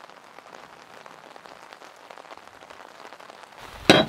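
Heavy rain on a sailboat's cabin windows and deck: a steady hiss dotted with fine drop ticks. Near the end the sound changes and one sharp knock, the loudest sound, stands out.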